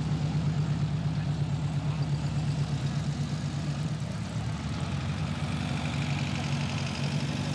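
Car engines running at low speed with a steady throbbing beat as cars drive slowly past; the engine note changes about five seconds in as a second car comes by.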